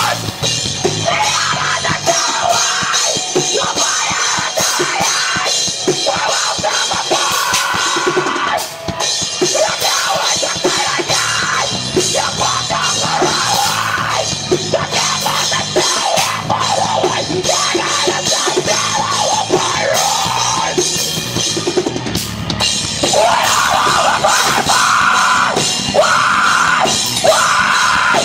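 Live rock band playing loud, with the drum kit to the fore and no vocals, dipping briefly about nine seconds in.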